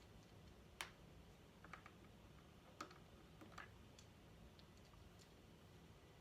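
Faint, irregular small plastic clicks and taps: knobs being pushed back onto the control shafts of a Numark Mixdeck DJ controller, a handful of clicks spread over several seconds against a near-silent room.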